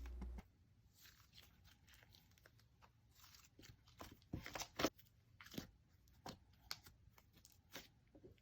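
Faint, scattered squishes and small crackling clicks of thick butter slime being pressed and stretched by hand, starting a few seconds in after near silence.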